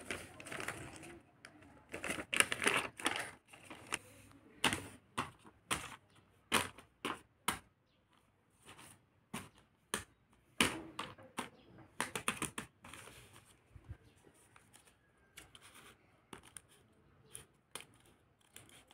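Paper craft pieces and glossy tape-covered paper pouches crinkling and rustling as hands pick them up and shuffle them, in a run of sharp, irregular crackles with short pauses.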